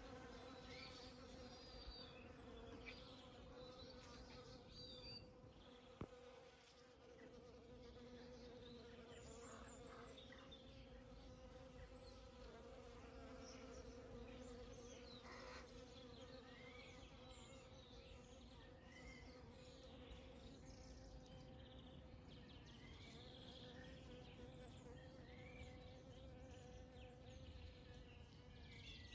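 Bees foraging at hellebore flowers, buzzing in a faint, steady hum.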